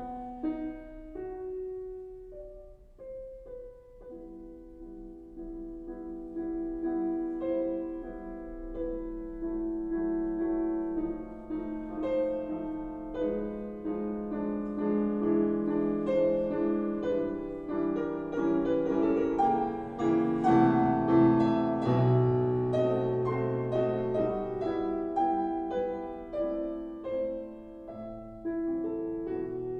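Piano music played back through the repaired NAD 3020 amplifier for a listening test. It starts softly, builds to its loudest about two-thirds of the way through, then eases off.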